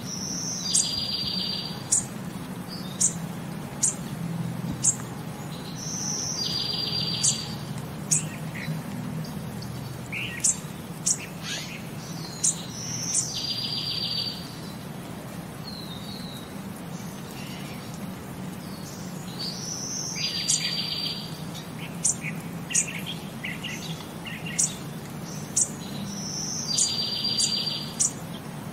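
Bird chirps on a looped track: a short high trill comes back about every six and a half seconds, with sharp single chirps between, over a low steady hum.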